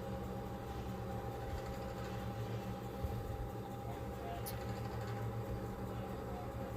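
Steady background hum and hiss of room noise, with one faint short click about four and a half seconds in.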